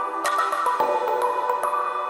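Background music: a melody of short pitched notes changing several times a second.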